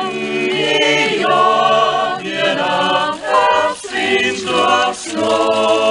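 Mixed-voice church choir singing a cappella in several parts, holding chords in long phrases with short breaks between them.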